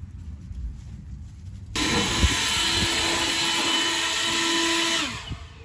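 Handheld blower switched on about two seconds in, running at full speed for about three seconds as it blows loose hay and dust out of a hay baler, then switched off, its tone falling as it spins down.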